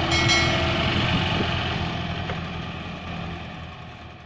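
Mahindra Arjun Ultra-1 555 DI tractor's diesel engine running as it pulls a loaded sugarcane trailer away, the sound fading steadily.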